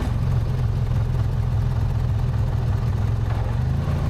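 Racing lawn mower's Briggs & Stratton twin-cylinder engine running steadily just after a cold start, before it has warmed up.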